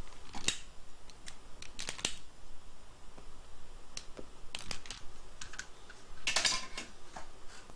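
Scattered light clicks and taps of small parts and tools being handled on a workbench while heat-shrink tubing is fitted over soldered fuse wires, with a short denser scraping rattle about six and a half seconds in.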